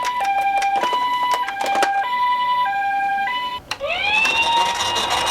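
Toy ambulance minicar's electronic siren playing the two-tone hi-lo "pee-poh" pattern, about three full cycles, with scattered plastic clicks. Near the end it stops, and a second toy siren starts as a rising wail that levels off and holds steady.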